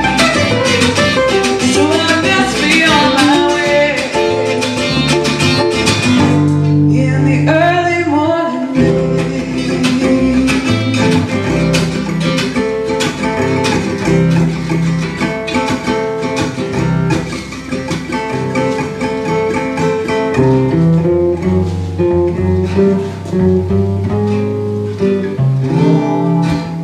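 Live acoustic band music: two acoustic guitars and an upright bass, with a woman's voice singing over the first several seconds before the guitars and bass carry on without her.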